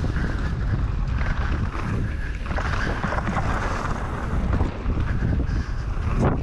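Mountain bike rolling fast down a dirt jump trail: wind rushing over the action camera's microphone and tyre roar from the dirt, with the bike clattering over the bumps.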